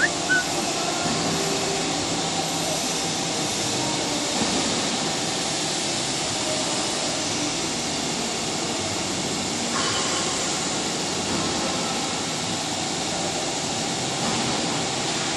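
Vertical automatic stone profiling machine running, with a steady grinding and motor noise as a stone slab is carried through its heads. The tone shifts slightly about ten seconds in.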